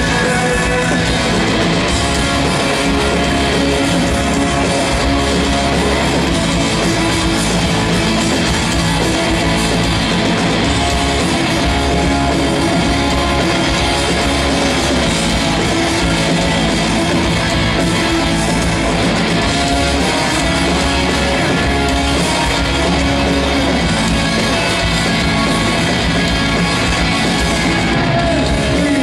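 Live hard rock band playing loudly: distorted electric guitar over bass and a drum kit, steady throughout.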